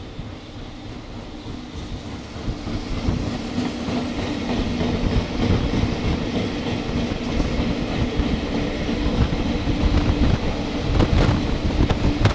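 EF65 electric locomotive hauling a train of loaded Taki 1000 tank wagons, approaching and passing close by and getting steadily louder, with a steady hum. Near the end the wagons' wheels click sharply over the rail joints.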